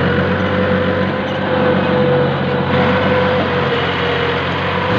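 Diesel tractor engine running steadily as the tractor is driven across a field.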